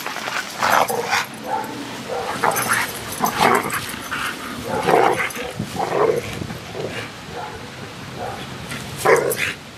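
Two dogs, a bull terrier and a young grey dog, at play, giving short barks and yips at irregular intervals. The barking is play, not aggression.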